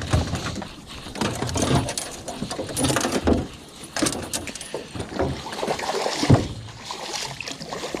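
A largemouth bass being netted and lifted into a boat: irregular splashing, rustling and knocks of the net and fish against the boat.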